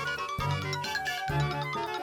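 Upbeat, playful background music: light keyboard-like notes over a steady beat.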